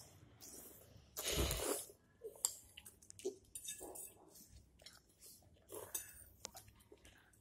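Children eating fried instant noodles: wet slurping and chewing, with a louder noisy stretch about a second in lasting about half a second. A few light clicks of forks on plates come in the later part.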